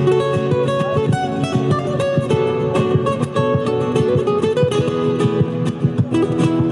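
Background music: fast, flamenco-style acoustic guitar playing, with quick plucked and strummed notes.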